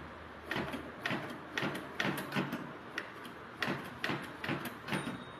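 Manual typewriter typing: about ten sharp key strikes, roughly two a second at an uneven pace, each hit ringing briefly.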